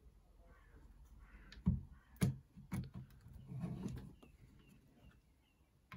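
Faint handling noise of 3D-printed plastic blaster parts, with a few light knocks and clicks as the flywheel cage is pressed down over the wiring and does not seat fully.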